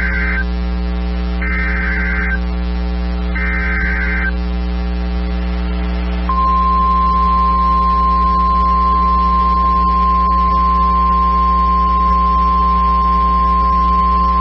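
NOAA Weather Radio alert signal: three short bursts of SAME digital header tones about two seconds apart, then the steady 1050 Hz warning alarm tone starting about six seconds in and held to the end. This sequence announces a new warning. A constant low electrical hum lies under it.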